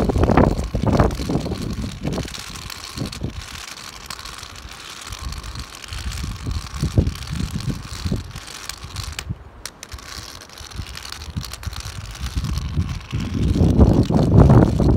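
Garbage truck running close by, its engine rumble rising and falling and swelling loud near the end, over a steady hiss of rain.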